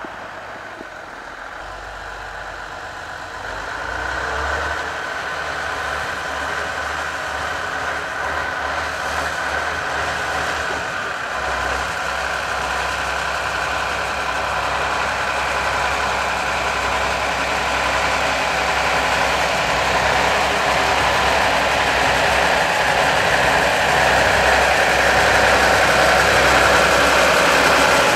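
Small narrow-gauge diesel shunting locomotive's engine running at low speed as it comes closer, getting steadily louder.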